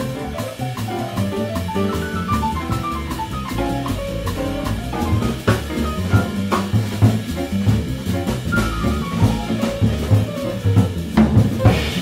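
Small jazz band playing up-tempo: drum kit with cymbals and snare, upright bass, and a fast line of short notes on top, with cymbal crashes about halfway and near the end.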